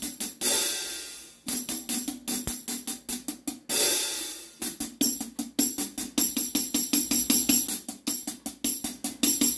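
A hi-hat with a tambourine mounted on it, played in a steady rhythm of stick strokes about four a second, the jingles ringing on each hit. It opens into longer washes twice, about half a second in and about four seconds in.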